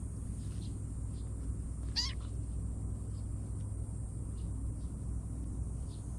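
A kitten mews once, a short high-pitched meow about two seconds in, over a steady low outdoor rumble.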